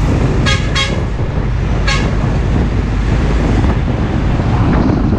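Truck horn giving three short toots, two in quick succession and a third about a second later, over a steady low rumble of passing truck traffic.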